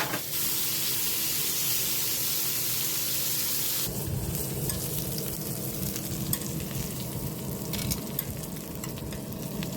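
Steady sizzling hiss of wood-fire-roasted pork. About four seconds in it changes abruptly to a lower rumble with scattered crackles and clicks.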